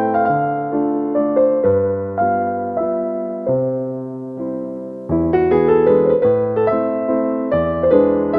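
Background music: a gentle electric piano melody with chords, notes struck and decaying one after another.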